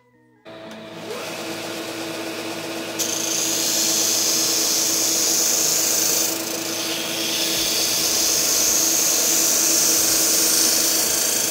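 GIB BDS-610 belt-and-disc sander running with a steady motor hum. About three seconds in, a wooden strip is pressed against its abrasive disc, and a loud, steady hiss of sanding wood rises over the hum.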